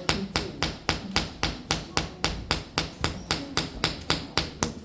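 Open palm slapping a person's upper back in a steady, even rhythm, about five to six slaps a second: paida slapping therapy over the Gaohuang acupoint area to bring out sha. Full-palm contact at an even rate gives a solid sound.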